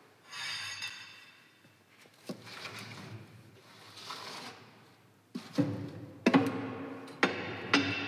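Steel rake scraping and shoving firewood and coals across the steel firebox of a wood-burning furnace. Three scrapes in the first half, then a run of sharp knocks that ring off the metal.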